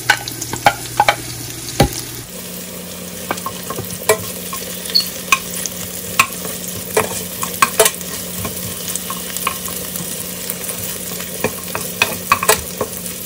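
Red onion, garlic and pork sizzling in oil in a stainless steel frying pan, with a metal spoon scraping and clinking against the pan at irregular moments as the food is stirred.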